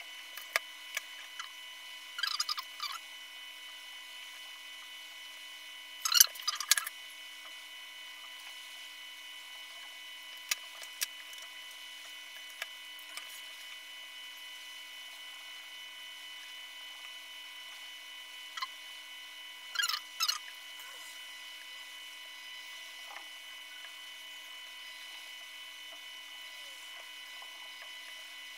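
Small steel magnets and metal blocks clicking and scraping against a steel stencil plate as they are set by hand around a phone logic board: scattered light knocks, the loudest a short cluster about six seconds in. A steady faint electronic whine runs underneath.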